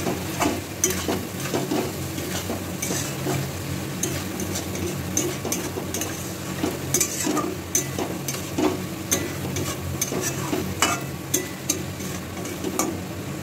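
A spatula scraping and tapping against a metal kadai in many short, irregular strokes as pointed gourds are stirred through a thick spiced yogurt masala. The masala fries steadily underneath.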